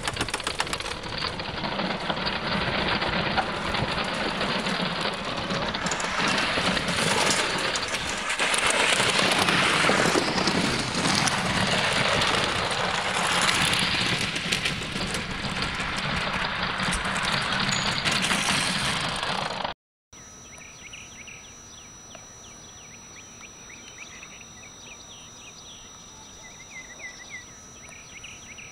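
Homebuilt wooden roller coaster car clattering and rattling along its wooden track, a dense rattle that swells and fades. About two-thirds of the way in it cuts off abruptly, and crickets and other insects are heard chirping, much more quietly.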